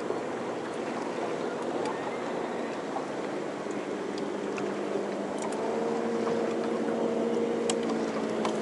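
Minn Kota Ultrex bow-mounted electric trolling motor running, a steady hum over water noise, with a higher steady tone joining about halfway through.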